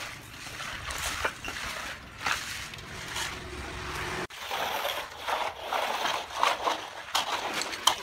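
Hand trowels and a long straightedge scraping and sliding over a wet concrete slab as it is being smoothed, with wet slopping sounds from the fresh concrete.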